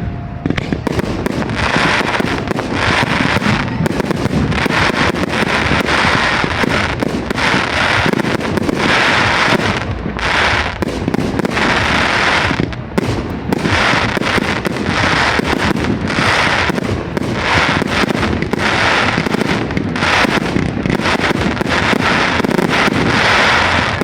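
Fireworks display: a dense, unbroken barrage of bangs and crackling bursts, loud throughout.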